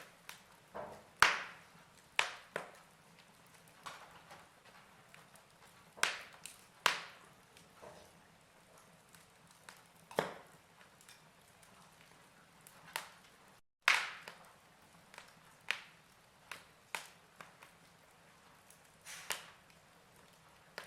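Fire crackling: irregular sharp pops and snaps over a faint steady hiss, several of them much louder than the rest. The sound cuts out completely for a moment about two-thirds of the way through.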